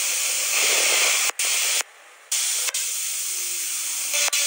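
A 60,000 PSI waterjet's stream hissing hard against a spinning roller skate wheel. The hiss cuts off abruptly for a moment about one and a half seconds in, and again for half a second around two seconds in. A faint falling whine runs under it in the second half.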